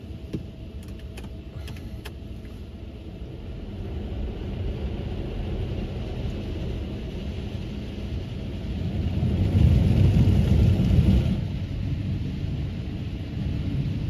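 Automatic car wash spraying water and foam onto the windshield, heard from inside the car: a low, muffled rush of spray that swells loudest about ten seconds in, with a few faint clicks a second or two in.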